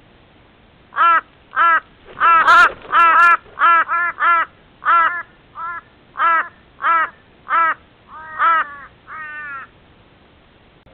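A crow calling a run of about fifteen short, harsh caws, one to two a second, the last two drawn out and wavering. A brief rustling burst with a few sharp clicks comes about two and a half seconds in.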